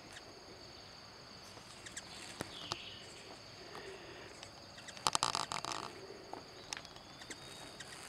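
Steady high-pitched drone of insects, with a few faint scattered clicks and, about five seconds in, a loud half-second burst of rapid clicking and rustling.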